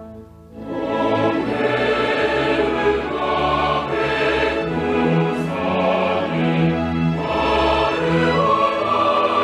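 Background music: choir and orchestra entering after a brief pause, in a sustained, swelling classical style.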